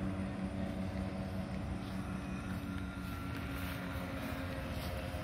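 Engine and propeller of a powered paraglider (paramotor) droning steadily overhead.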